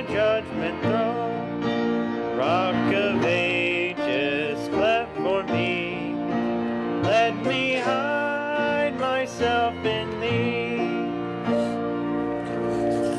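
A hymn being sung, one voice with a strong vibrato to the fore, over piano and steadily held keyboard chords.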